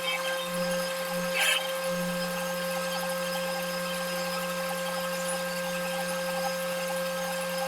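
Woodworking machine motor running with a steady hum, with one short rasping burst of cutting noise about a second and a half in.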